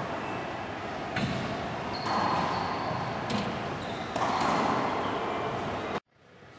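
Racquetball rally: the ball cracking off rackets and the court walls several times, each hit ringing in the enclosed court. The sound cuts off abruptly near the end.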